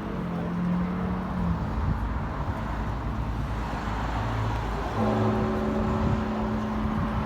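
Russian Orthodox cathedral bells ringing over a steady rumble of street traffic. A low bell tone fades out at the start, and a new heavy stroke rings out about five seconds in, its many overtones holding on.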